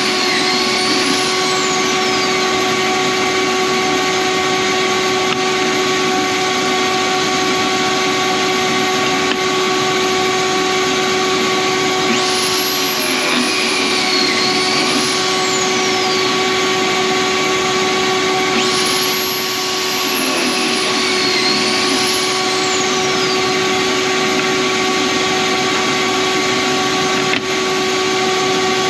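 Dust collector running steadily on a Kreg Foreman pocket-hole machine, while the machine's drill motor spins up and winds down three times, about a second, twelve seconds and nineteen seconds in, as pocket holes are bored into the boards. Each cycle is a high whine that rises and then falls away.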